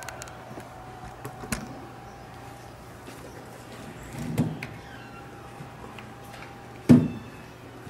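Handling noise of a Sangean ATS-909X portable radio being lifted out of its cardboard box and turned over: a light click, a duller knock with rustling about four seconds in, and a sharp thump, the loudest sound, about seven seconds in as the radio is set down on the table. A faint steady hum runs underneath.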